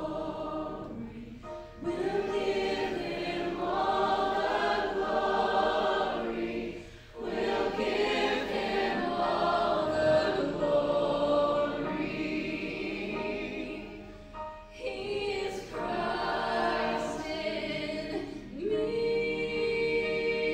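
Several voices singing a worship song together in harmony, phrase by phrase with brief breaths between, then settling into a long held chord near the end.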